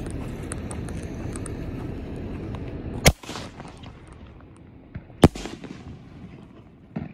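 A Brothers Pyrotechnics Unmatched 5-inch canister shell fired from a mortar tube: a sharp thump of the lift charge about three seconds in, then about two seconds later the louder bang of the shell breaking in the air, with a smaller pop near the end. Before the launch there is a steady hiss with faint crackles.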